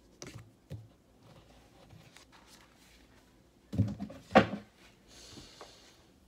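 Oracle cards and their deck box being handled on a table: light rustling and small knocks, with two louder knocks about four seconds in and a brief hissing rustle near the end.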